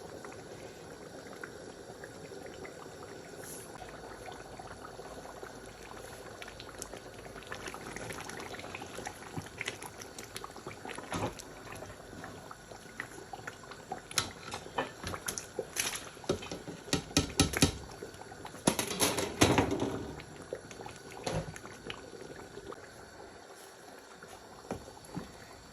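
Pot of stew bubbling on the heat, a steady low hiss, with a run of clicks, knocks and scrapes against the pot from about halfway through.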